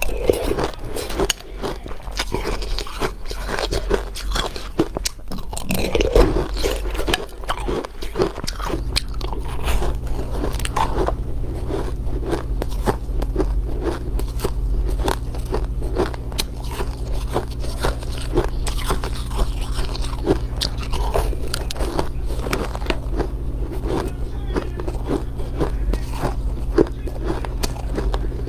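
Dense, irregular crunching and crackling close to the microphone. A steady low hum starts abruptly about nine seconds in and continues under it.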